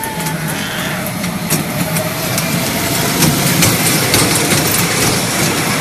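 Kiddie ride train running along its small steel track: a steady mechanical rumble with faint clicking.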